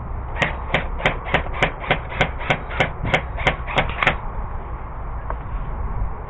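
Airsoft gun firing a quick string of about a dozen semi-automatic shots, roughly three a second, stopping about four seconds in.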